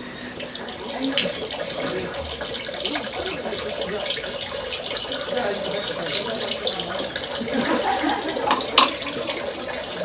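Water pouring steadily from a dragon-head spout into a stone purification basin, splashing on the water below, with a sharp knock about nine seconds in.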